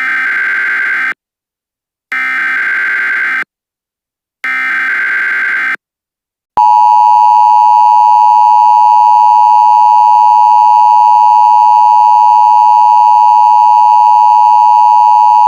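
Emergency Alert System tones: three bursts of digital SAME header data, each about a second long with a short pause between. Then, about six and a half seconds in, the steady, loud two-tone EAS attention signal starts and holds.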